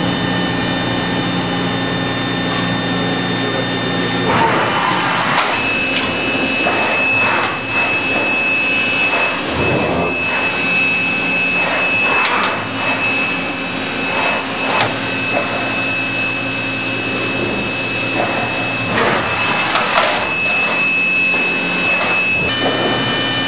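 Mitsui Seiki HU63A horizontal machining center running: a loud, steady mechanical hum with scattered clatter. A steady high whine sets in about five seconds in and stops shortly before the end.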